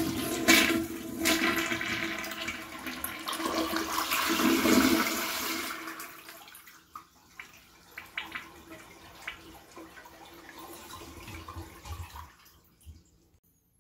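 American Standard toilet flushing with the handle held down and the water supply shut off, so the tank drains completely without refilling. The rush of water is loudest for about the first six seconds, then fades into trickles and gurgles and stops about a second before the end.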